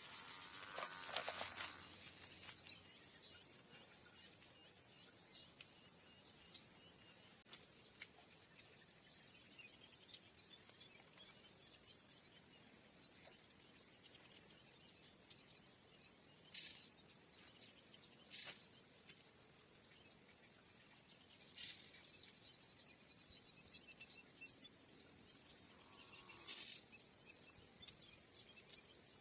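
Steady high-pitched drone of insects, like crickets, with a few faint clicks and rustles now and then.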